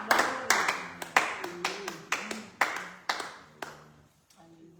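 Scattered hand clapping from a small church congregation, a few people clapping at an uneven pace that thins out and stops after about three and a half seconds, with soft voices underneath.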